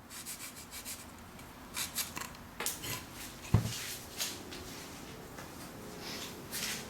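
Short, scratchy rubbing strokes of a square balsa stringer being sanded to round off its corners, with one sharp knock about halfway through.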